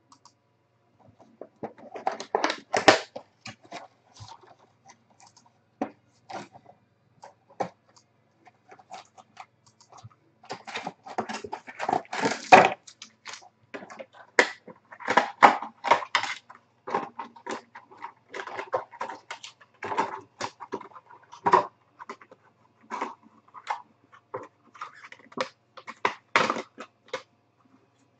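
Plastic and cardboard packaging of a trading-card hobby box being handled and opened, with irregular crinkling, rustling and small clicks in uneven bursts.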